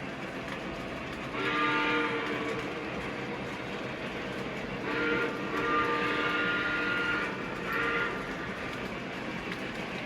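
Model train locomotive's horn blowing three chord blasts, two long and one short, over the steady running noise of the train.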